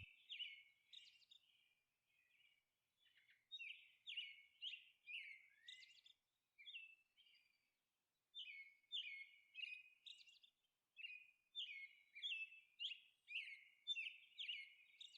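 Faint bird chirping: short chirps that slide down in pitch, repeating about twice a second, with a couple of brief pauses.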